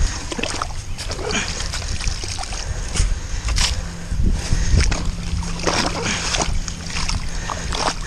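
Shovels chopping and scraping into waterlogged turf and mud, with wet splashing as the blades go through standing water; the strokes come irregularly throughout.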